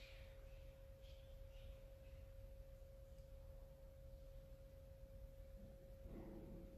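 Near silence: room tone with a faint, steady hum at a single pitch and a low rumble underneath.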